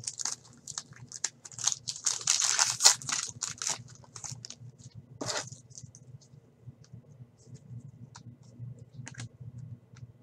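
A foil trading-card pack torn open, its wrapper crinkling and rustling in a dense burst over the first few seconds. Then the cards are handled, with sparse light clicks and slides.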